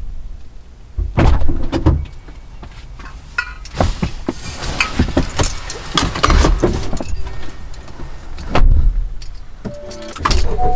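Irregular knocks and clicks over a low rumble, with a brief steady tone a little before the end.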